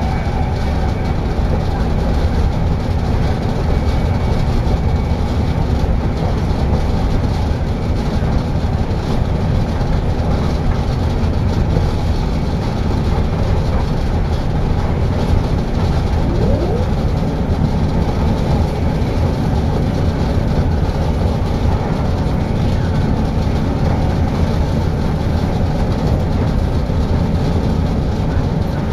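Passenger train running at speed, heard from inside the carriage by the doors: a deep, steady noise of the wheels on the rails and the car's running, with no break.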